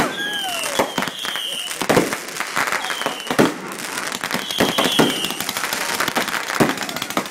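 Consumer fireworks display going off: a rapid run of bangs and dense crackling from bursting aerial shells, with a few short, high, slightly falling whistles. The biggest bangs come about one, two and three and a half seconds in.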